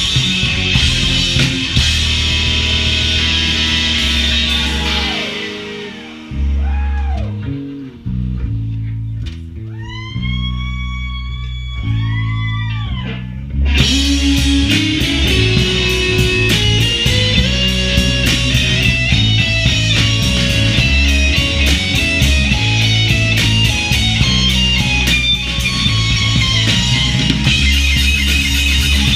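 Live rock band playing: guitar, bass guitar and a drum kit with cymbals. About five seconds in the cymbals and drums drop away, leaving bass and guitar with bent notes that swoop up and down. The full band crashes back in about fourteen seconds in.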